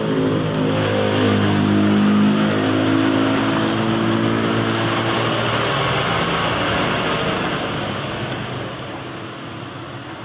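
A motor vehicle's engine passing close by: it grows louder with a rising engine note in the first couple of seconds, holds, then fades away over the last few seconds.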